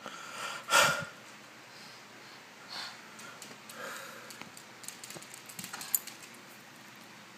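Small Chihuahua-Pomeranian mix dog close to the microphone: one short loud sound about a second in, then soft sniffing and a few light clicks as the dog comes up to it.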